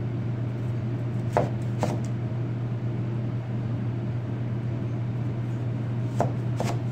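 Chef's knife slicing a cantaloupe into wedges, the blade knocking on the cutting board twice about a second in and twice more near the end, over a steady low hum.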